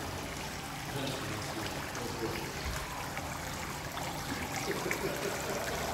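A small fountain's water jet splashing steadily into its basin.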